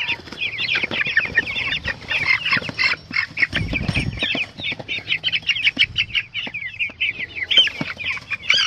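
A crowd of three-week-old meat chicks peeping, many short high cheeps overlapping without a break. A brief low rumble comes about three and a half seconds in.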